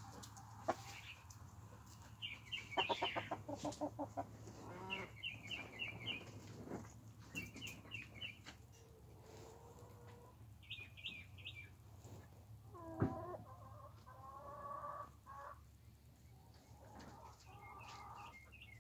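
Chickens clucking and calling in scattered short runs of quick notes, with one louder call about two-thirds of the way through.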